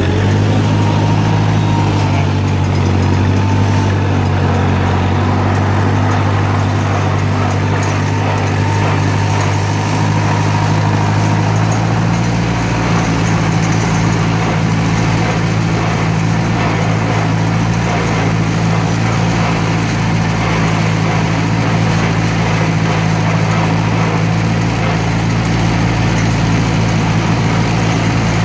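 1958 Cockshutt 540 tractor's four-cylinder flathead engine running steadily at a constant speed as the tractor drives across the field.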